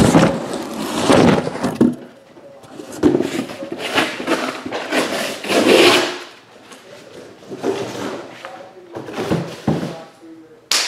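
Shrink-wrapped card boxes being pulled from a cardboard shipping case and stacked, with scraping and rustling of cardboard and plastic wrap in three bursts.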